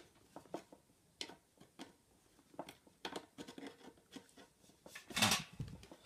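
Faint, scattered small clicks and taps of pliers working a bent mains-plug prong back straight, with a brief rustle about five seconds in.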